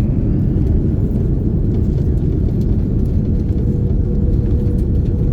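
Cabin noise of an Airbus A330-900neo airliner: a steady, loud low rumble of its Rolls-Royce Trent 7000 engines and the airflow. A steady hum joins about three and a half seconds in.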